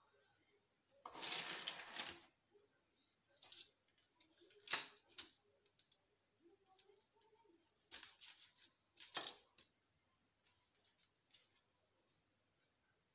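A kitchen knife slicing through a log of soft biscuit dough on parchment paper, with faint paper rustling and a few sharp taps of the blade against the counter.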